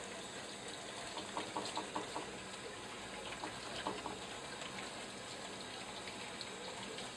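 Water running steadily from a tap, with a few light clicks about one to two seconds in.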